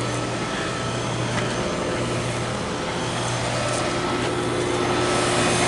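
Outdoor heat pump unit running steadily, its condenser fan making a steady rush over a low compressor hum. The sound grows a little louder toward the end.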